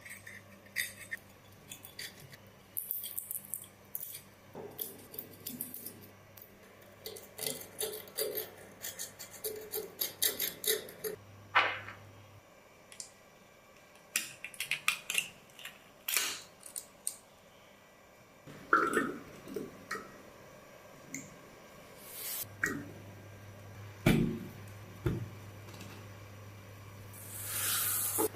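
Irregular clinks, taps and scrapes of small metal parts being handled and worked on, over a faint low hum.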